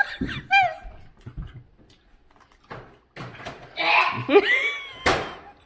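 People making wordless disgusted groans and "ugh" noises while chewing a bite of snack cake they dislike, with soft chewing noises in between and a short, sharp puff of breath near the end.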